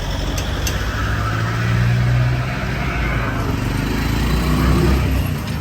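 A motor vehicle's engine running close by, a steady low hum that starts suddenly and swells slightly in the middle.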